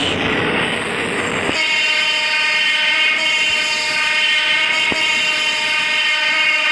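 Philippine National Railways train sounding its horn: a loud rushing noise for the first second and a half, then one long, steady horn chord held to the end.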